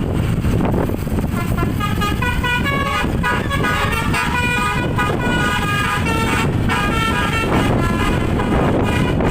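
An Indonesian bus's telolet horn playing a quick tune of short high notes that step up and down in pitch, over the low rumble of the bus on the road.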